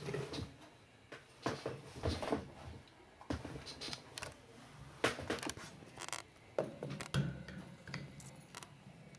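Irregular metallic clinks and rattles from a wire gerbil cage, its mesh ramps and bars knocked about in short scattered bursts.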